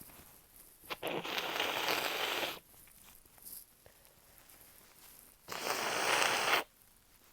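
A person blowing their nose hard twice, each a long rushing blast: the first about a second in and lasting about a second and a half, the second shorter and near the end.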